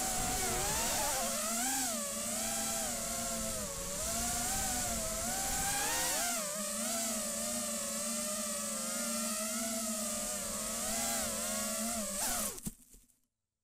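Brushless motors (RCX H2205 2633 kV) spinning DAL 4-inch tri-blade bullnose props on a racing quadcopter, picked up by its onboard camera: a high whine that rises and falls with the throttle. It cuts out about twelve and a half seconds in as the quad comes down on the grass.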